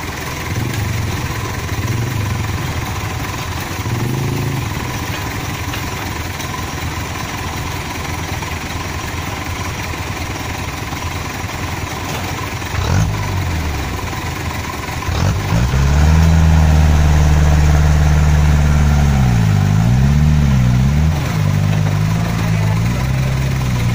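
Heavily loaded palm-fruit truck's diesel engine running, then revved hard and held under heavy load from about two-thirds of the way in as the truck strains to pull out of the mud. Near the end its pitch dips and rises a couple of times under the load.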